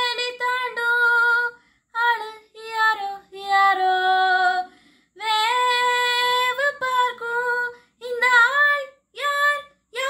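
A woman singing solo without accompaniment, in sung phrases with held, sliding notes broken by short pauses.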